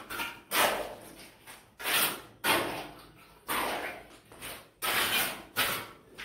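A long-handled hoe scraping and spreading wet cement mortar over a broken-brick floor base, in a run of about six strokes, each a short scrape that fades.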